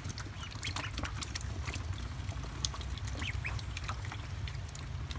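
Ducklings splashing and dabbling in a shallow pan of water: quick small splashes and bill clicks, with a couple of short peeps, over a steady low hum.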